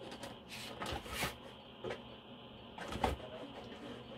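Plastic shoe box being handled and turned over, giving a few soft knocks and rustles of plastic, the loudest about three seconds in.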